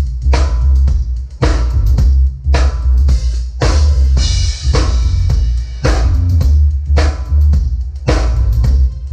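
Live band playing: a drum kit with bass drum and snare hits about once a second over a heavy, sustained bass line, with some pitched instruments above.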